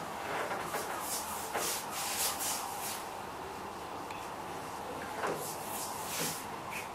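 Paintbrush drawn over wooden woodwork, laying on gloss paint in a series of soft swishing strokes, most of them in the first three seconds.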